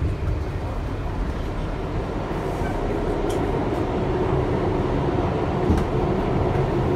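Interior of a Bombardier R62A subway car as the train rolls into a station and slows to a stop: a steady rumble of wheels and running gear, with a few light clicks.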